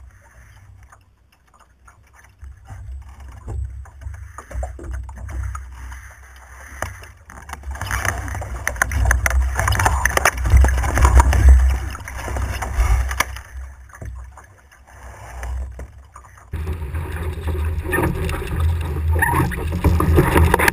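A Laser Radial dinghy sailing, heard from a camera mounted on the boat: water rushing and splashing along the hull under a low rumble of wind on the microphone. It starts quiet, swells to loud rushing, then jumps abruptly to louder, rougher water with spray about two-thirds of the way through.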